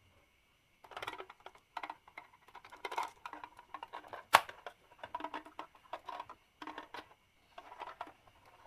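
Marbles rolling and clattering down a wooden marble run in a string of short rattling runs, with a sharp click about four and a half seconds in.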